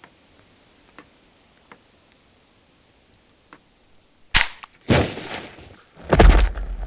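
A few faint ticks, then a sudden sharp crack, a loud crash that dies away over about a second, and a final heavy, bass-laden impact: foley and stock effects for violent hits.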